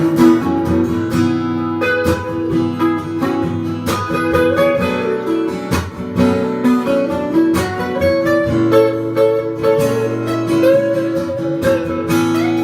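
Instrumental break played on acoustic guitars: a strummed rhythm part under a lead guitar line with bent, gliding notes.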